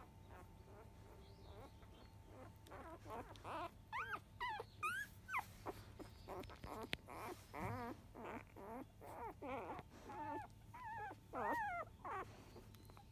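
Five-day-old Labrador retriever puppies squeaking and whimpering while they nurse. After a quiet start they give a quick run of short, high calls that waver up and down in pitch, and the calls fade out near the end.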